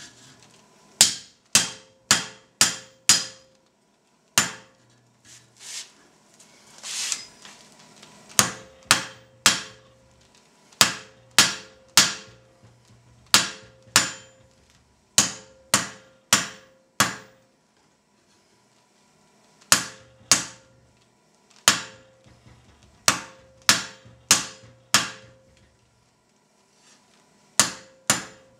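Hand hammer striking red-hot steel on an anvil, in runs of four or five blows about two a second with short pauses between runs; each blow has a short ring. The smith is straightening and shaping the hot spike of a forged log hook.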